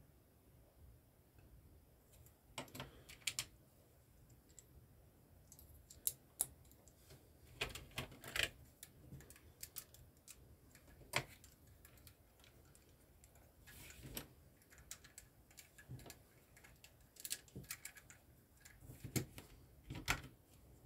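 Plastic LEGO pieces clicking as they are handled and pressed together, a scatter of sharp, irregular clicks, some in quick pairs or clusters.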